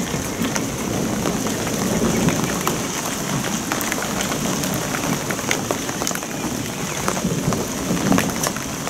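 Steady thunderstorm rain falling, with many sharp, irregular drop ticks close by.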